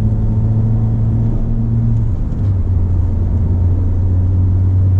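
Ford Fiesta ST's turbocharged 1.6-litre four-cylinder engine running while the car is driven. About two seconds in, the note breaks briefly and settles at a lower steady pitch.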